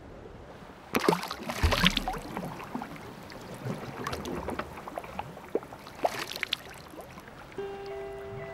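A glass bottle splashes into lake water about a second in, followed by water sloshing and splashing close up, with a second burst of splashing around six seconds.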